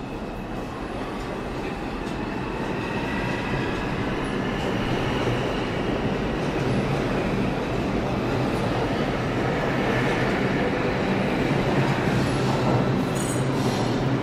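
New York City subway train running, growing steadily louder, with a faint high pitched wheel squeal in the first few seconds.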